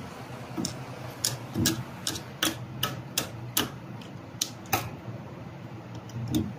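A series of sharp metallic clicks and taps at uneven intervals, about ten in all, from metal tools and parts being worked during a CV joint repair, over a steady low hum.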